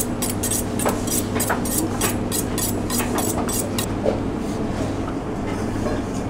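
A chef's knife is honed on a sharpening steel in quick metallic scraping strokes, about five a second, for about four seconds. Then come a few softer cuts of the knife through a peeled apple onto a plastic chopping board. A steady low hum runs underneath.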